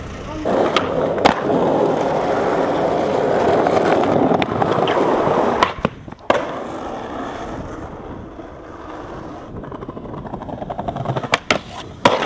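Skateboard wheels rolling on rough pavement, then sharp clacks of the board hitting concrete about six seconds in. Quieter rolling follows, with a few more clacks near the end.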